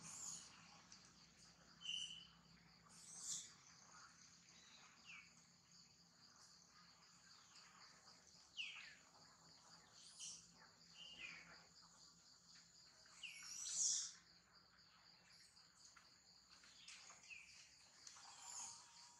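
Faint outdoor ambience: insects droning steadily, high-pitched, with scattered short high chirps now and then, the loudest about two-thirds of the way through.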